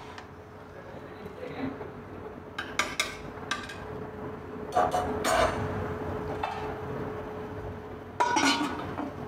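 Steel ladle clinking and scraping against an aluminium cooking pot of dal as it is stirred and tapped on the rim, with a louder clatter halfway through. About 8 seconds in, the aluminium lid clanks down onto the pot.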